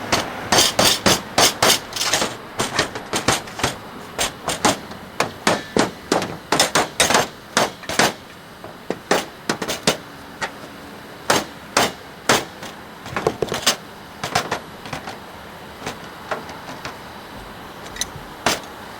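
Hammer blows on copper roofing sheet, a rapid run of sharp strikes for the first several seconds, then slower, irregular strikes with a couple more near the end.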